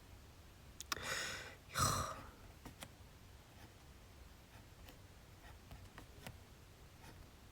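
A person sighing about a second in: two breathy rushes of air, the second one louder. A few faint light clicks follow.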